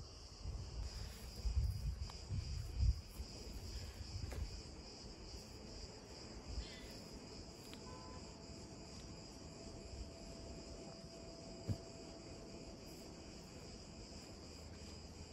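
Steady high-pitched drone of cicadas. A few low thumps and rustles come in the first three seconds, and a single sharp click about three-quarters of the way through.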